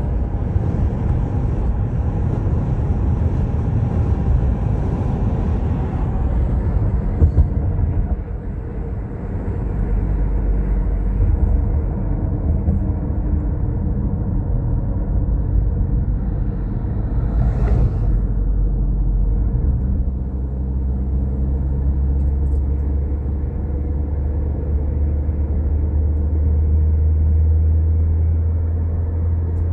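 Car driving on an open road, heard from inside the cabin: a steady low rumble of engine and tyres.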